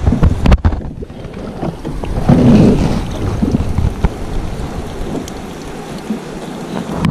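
Wind buffeting a body-worn camera's microphone: an uneven low rumble, with shirt fabric rustling and knocking against the camera.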